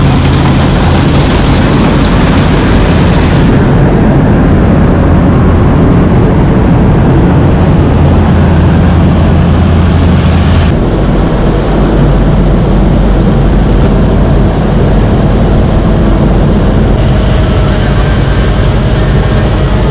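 Heavy farm machinery running steadily and loudly: a combine harvester and tractor at work. The engine sound shifts abruptly three times, about 3.5, 11 and 17 seconds in.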